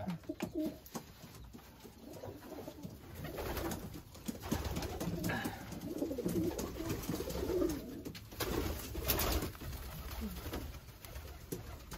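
Homing pigeons cooing in a small wooden loft: repeated low, wavering coos from several birds, overlapping.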